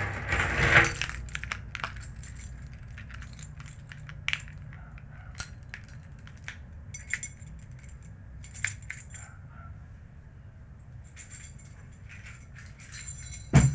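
A bunch of metal keys being handled and shaken. It opens with a burst of jangling, then gives scattered single clinks, and jangles again near the end, finishing with one sharp, loud clink.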